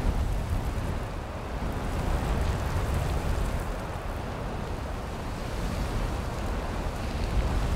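Wind buffeting the microphone: a steady, heavy rushing noise, deepest in the low end, that swells and eases over a few seconds.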